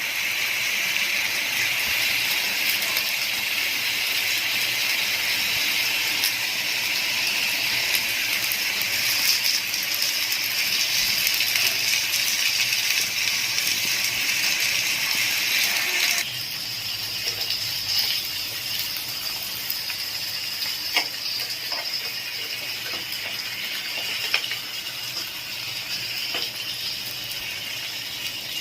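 Chicken breast pieces coated in peanut butter sizzling steadily in olive oil in a frying pan. The sizzle drops suddenly to a quieter level about halfway through, with a few sharp clicks after.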